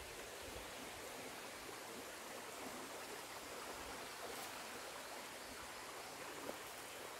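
Faint, steady rushing of a shallow, rocky river flowing.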